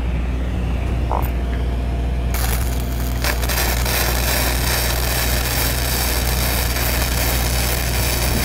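Engine-driven welder's diesel engine running steadily, its Perkins 403D-11 engine under load. About two seconds in, a welding arc strikes with a steady crackling hiss, and a second arc joins about a second later as two operators weld at the same time.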